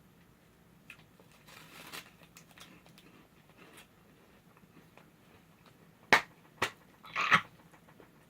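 Close-up chewing of a crunchy corn puff snack: soft faint crunching, then two sharp clicks about six seconds in and a short rustle-like burst just after.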